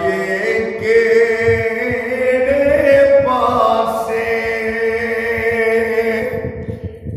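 A man chanting a devotional kalam unaccompanied, in long drawn-out notes. About three seconds in his voice rises and holds a higher pitch, then it breaks off just before the end.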